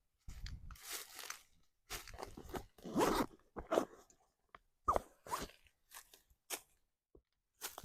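Camping hammock chair being unpacked and hung: zip pulls and the rustle and swish of nylon fabric and straps, in short irregular bursts.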